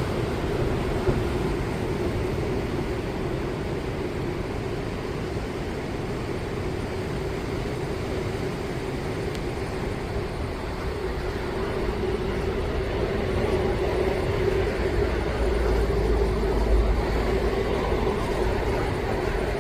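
High winter sea waves breaking and washing in, a steady rushing noise that grows louder for a few seconds near the end.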